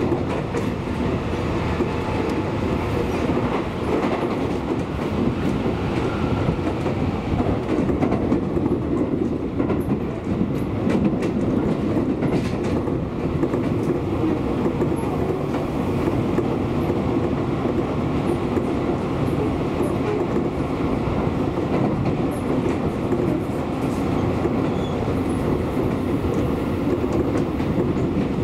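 Electric commuter train running at speed, heard from inside the passenger car: a steady rumble of wheels on rails, with a few faint clicks about ten seconds in.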